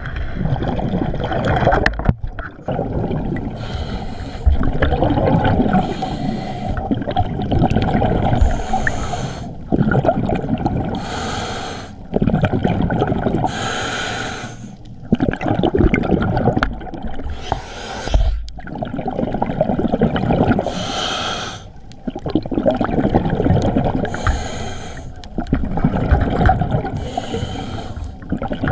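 A scuba diver breathing through a regulator underwater: each inhalation is a sharp hiss every two to three seconds, and each exhalation is a low rumble of bubbles between them.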